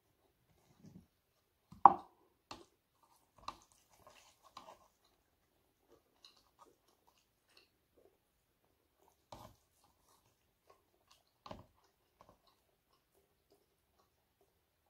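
Close-up eating sounds: scattered clicks, crunches and soft knocks as food is picked from a plate by hand and chewed. The sharpest comes about two seconds in, and a few smaller ones follow with quiet gaps between them.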